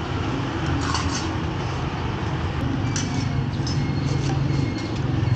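Busy street-market background: a steady low hum under a general din, with occasional light clinks.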